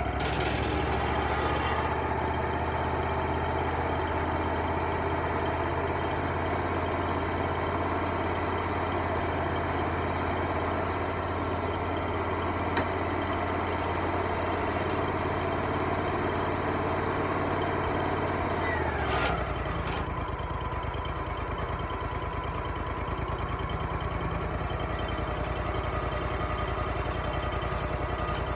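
Wood-Mizer LT35HD portable sawmill running steadily, its engine hum overlaid by a higher steady whine. About two-thirds of the way through, the whine glides down and stops, and the engine settles to a lower, plainer note.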